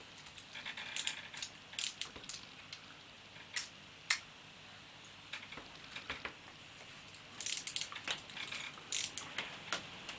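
Small clicks and light ratcheting from the shutter and dials of an old Paxette 35mm rangefinder camera being handled and adjusted, in scattered bursts of a few clicks at a time.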